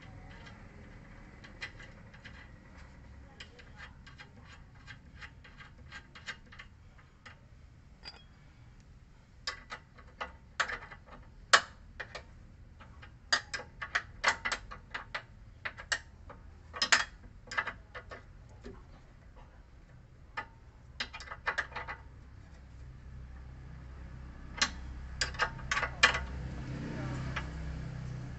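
Short runs of sharp metal clicks from a wrench on the upper nut of a Ford EcoSport's front stabilizer link as it is tightened, several clicks a second with pauses between runs. A low rumble builds near the end.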